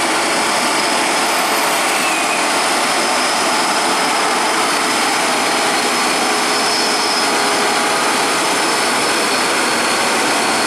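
Diesel engine of a loaded Hino truck labouring steadily as it climbs a steep hairpin bend in low gear, a constant, even noise with no clear changes.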